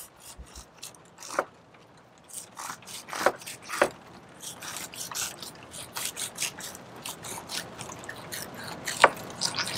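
A short bait knife sawing between a mahi-mahi fillet and its skin on a fillet table: a rapid, irregular run of small scraping clicks, with a few sharper knocks.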